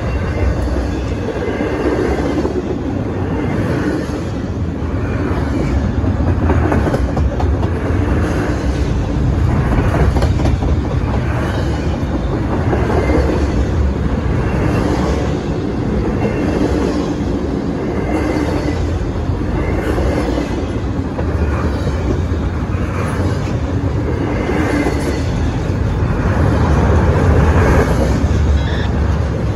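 Double-stack container well cars of a freight train rolling past close by. A steady, loud rumble of steel wheels on rail, with repeated clickety-clack as the wheels cross rail joints.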